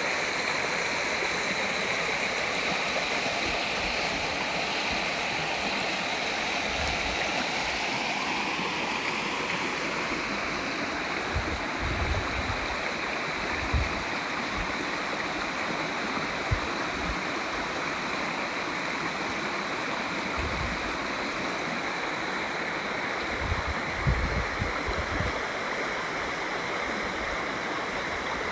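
A river running fast over rocks, a steady rush of water. A few short low thumps come partway through and again near the end.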